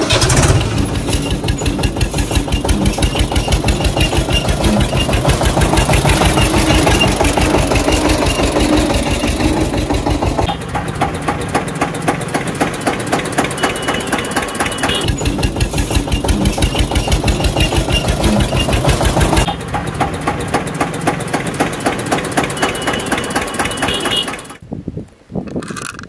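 Tractor engine sound running with a rapid, even chugging; its character changes abruptly a few times, and it drops away near the end.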